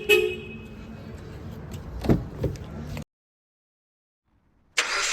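Road traffic noise with a few short, sharp sounds: two brief tones right at the start and a couple of knocks about two seconds in. The sound then cuts out to silence for almost two seconds, and a burst of hiss comes in near the end.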